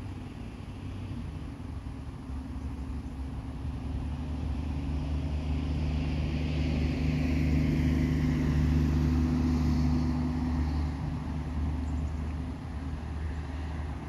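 A motor vehicle passing by: a low engine hum that swells to its loudest about two-thirds of the way through, then fades.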